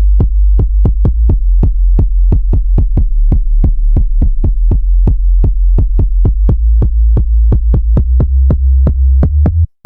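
Background electronic music: a steady deep bass drone under a regular kick beat of about four hits a second, cutting out for a moment near the end.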